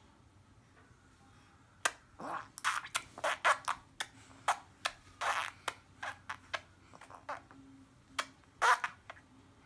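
A person making silly mouth noises: a quick, irregular run of sharp clicks and pops mixed with short hissy bursts, starting about two seconds in and stopping near the end.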